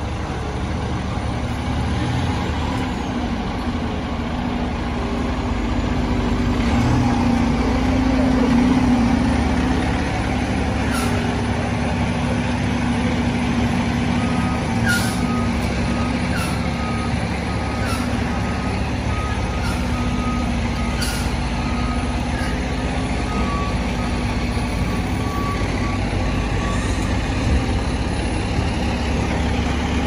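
A fire engine's diesel running as the ladder truck maneuvers, swelling about eight seconds in. Several short air-brake hisses come through the middle, and a reversing alarm beeps about once a second for most of the second half.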